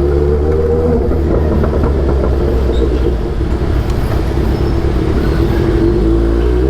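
Kawasaki Z800's inline-four engine running at fairly steady revs through an aftermarket Austin Racing exhaust, its note holding level with only small wavers in pitch.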